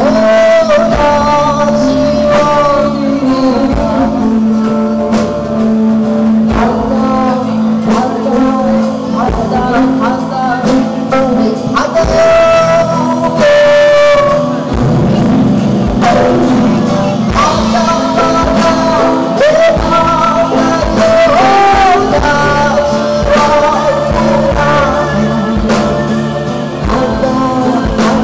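Live band with a woman singing lead over acoustic guitar, a Korean transverse bamboo flute, a Korean zither, keyboard and drums; the music plays on without a break.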